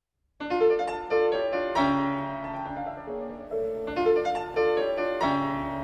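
Piano music: a melody of struck notes over soft chords, starting about half a second in.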